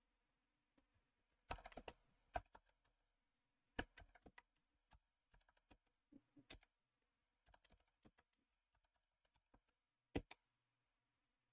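Faint typing on a computer keyboard: irregular runs of keystrokes, with a sharper single keystroke about ten seconds in.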